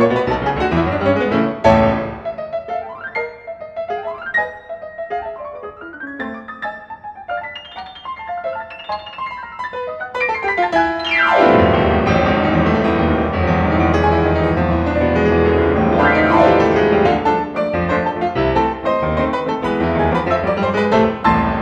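Piano music: runs of single notes for the first half, then swelling about halfway through into fuller, louder chords over a deep bass before thinning out again.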